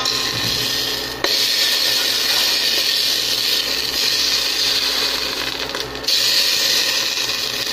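Steady whirring hiss with a faint hum, breaking off for an instant about a second in and again about six seconds in.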